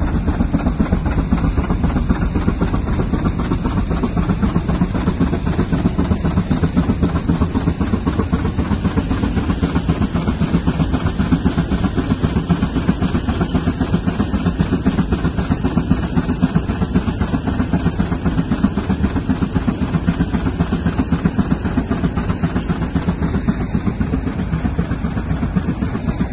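25 hp George White steam traction engine belted to a Baker fan, working steadily under load at 95 psi, its exhaust beating in a rapid, even rhythm.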